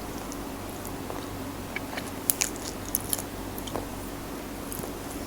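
A person chewing food close to the microphone, with wet mouth clicks and smacks; the sharpest clicks come a little over two seconds in and around three seconds.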